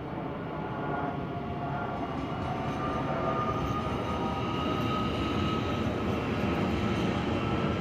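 Deutsche Bahn Class 442 (Talent 2) electric multiple unit passing. Wheels rumble on the rails under a whine of a few tones from its electric drive, and the sound grows slowly louder.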